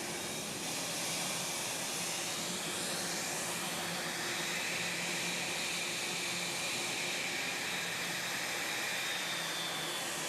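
Steady whine and rushing noise of an aircraft's jet turbine running, with a few high tones that drift slightly lower near the end.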